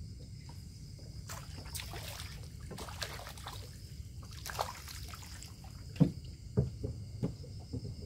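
Water sloshing and trickling as a fishing net is swept through the water, then a few sharp slaps or knocks in the last two seconds, over steady cricket chirping.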